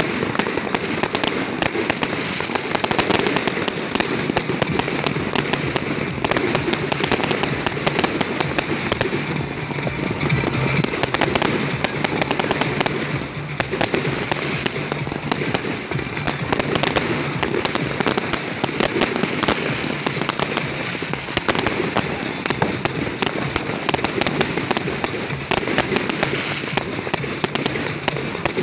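Many fireworks bursting and crackling at once: a dense, unbroken barrage of sharp bangs and crackles, with rockets going up as others explode overhead.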